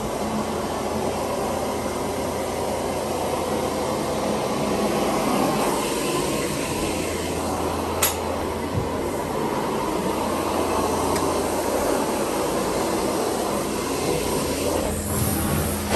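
Carpet-cleaning extraction machine running: a steady rushing vacuum noise over a low hum, with a single sharp click about eight seconds in.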